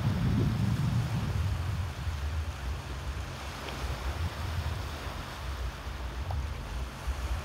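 Wind buffeting the microphone, heaviest in the first couple of seconds and then easing, over a steady hiss of small waves washing on a pebbly shore.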